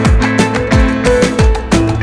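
Music with a steady drum beat and sustained melodic notes.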